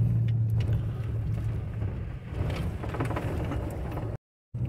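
Steady low drone of a vehicle's engine and tyres heard from inside the cabin while driving. It breaks off abruptly at an edit a little after four seconds in.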